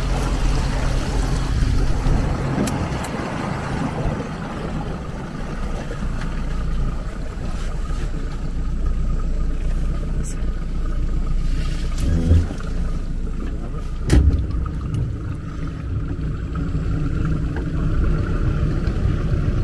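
Low, steady rumble of a small boat's outboard motor running slowly, with two short knocks against the boat late on.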